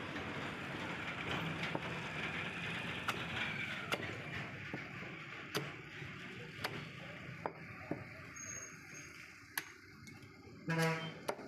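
Steady street background noise with a handful of sharp knocks scattered through it. A vehicle horn honks briefly near the end, the loudest sound.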